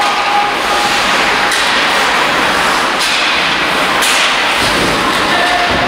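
Ice hockey play in a rink hall: a steady hiss of skates on ice and rink noise, with a few sharp knocks of sticks, puck or boards.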